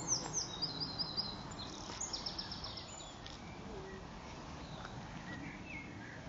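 Small songbird singing in quick, high trills through the first half, with a few fainter, lower chirps near the end, over a steady background hiss.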